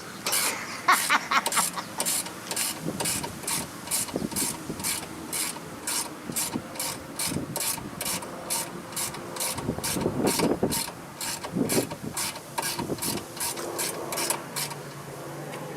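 Hand ratchet clicking steadily, about three clicks a second, as 10mm headlight-mounting bolts are backed out by hand rather than with an impact gun.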